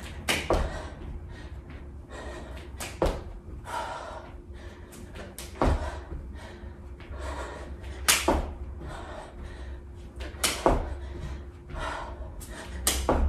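Sneakered feet landing on a rug-covered floor during knee-tuck jumps, a hard thud about every two and a half seconds, with lighter landings from low jumping jacks and breathing between them.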